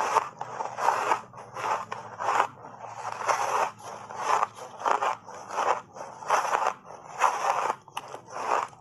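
Close-miked crunching of a frozen ice block coated in matcha tea powder as it is bitten and chewed: a steady run of loud, crisp crunches, roughly two a second.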